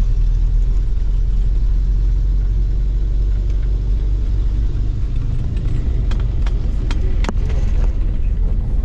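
Steady, loud low rumble of a vehicle driving, heard from inside the cabin, with a few sharp clicks and knocks about six to seven seconds in.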